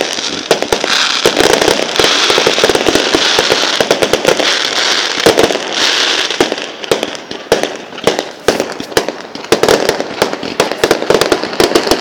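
Fireworks going off: a dense, rapid run of cracks and pops over a steady hiss. After about six or seven seconds the hiss fades and the cracks come more separately.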